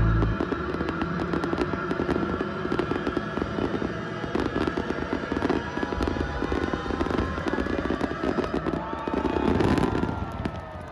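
Fireworks display: a dense, continuous crackle of many small rapid bursts from crackling stars, swelling louder near the end.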